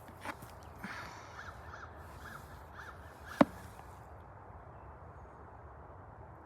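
A crow cawing about six times in quick succession, then one sharp snap about three and a half seconds in as a branch of the bird nest spruce is cut through.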